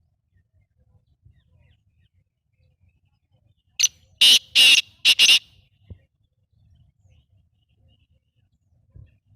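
Black francolin (kala teetar) calling: one harsh call of about five grating notes in quick succession, a little under four seconds in and lasting under two seconds.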